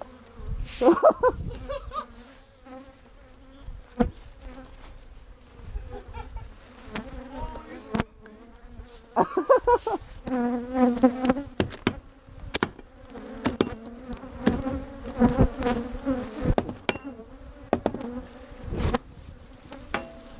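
Bees pouring out of a disturbed hive and buzzing close around the microphone, the buzz wavering up and down in pitch and loudness as bees fly past, louder from about halfway through. Scattered sharp knocks are heard over the buzzing.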